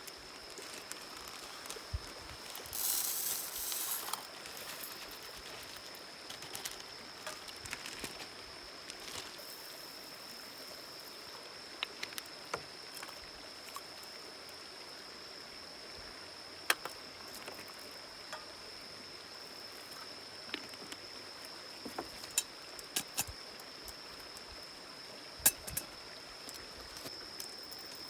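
River flowing steadily under a continuous high-pitched insect-like tone, with a brief rustle about three seconds in and scattered sharp clicks and taps.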